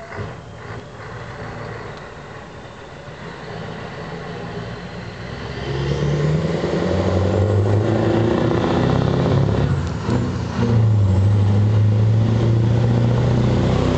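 Scania V8 truck approaching, its diesel engine growing steadily louder and rising in pitch. The engine note drops briefly about ten seconds in, then runs on steady and loud as the truck comes close.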